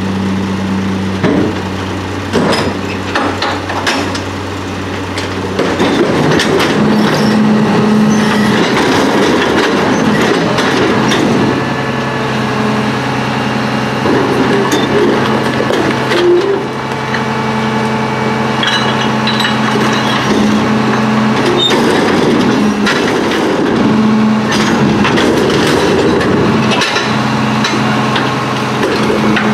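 Rear-load garbage truck's engine idling, then speeding up about six seconds in to drive the McNeilus hydraulics as a commercial dumpster is lifted and tipped into the hopper. Metal clanks and banging from the container and lift run throughout, heaviest in the first few seconds.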